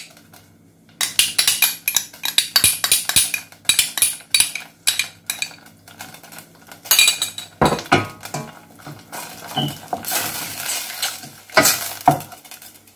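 Wooden spoon stirring a thick sauce in a stainless steel saucepan, with repeated clicks and knocks against the pan, a short stretch of hiss about ten seconds in, and a louder knock near the end.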